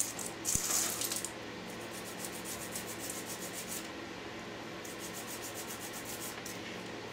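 Rapid scraping and fine crackling of brittle cast foam being pried and scraped out of a 3D-printed ABS mould, loudest in the first second or so. The foam, mixed at the wrong ratio, flakes and snaps instead of flexing.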